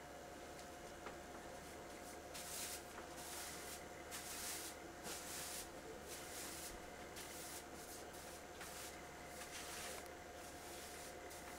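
Broom sweeping a wooden floor: a run of faint, short brushing strokes, about one or two a second, starting a couple of seconds in.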